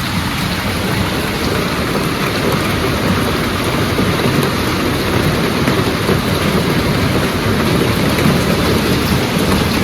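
Heavy rain pouring down, a dense, steady hiss heard through a phone's built-in microphone.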